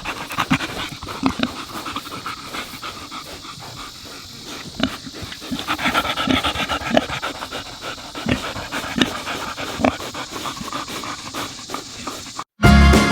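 An animal panting and snuffling in quick, irregular breaths, with short clicks and scuffs among them. Music cuts in near the end.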